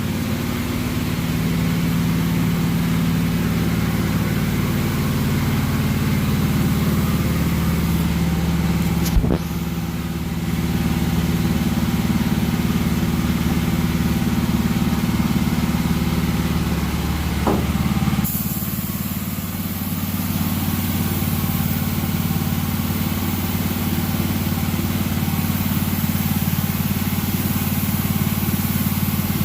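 Air compressor running steadily under the hiss of a paint spray gun, the hiss turning brighter about two-thirds of the way through.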